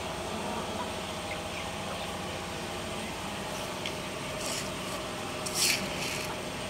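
Chickens and ducks feeding on scattered feed, over a steady engine-like hum, with a few short sharp sounds from the flock, the loudest about five and a half seconds in.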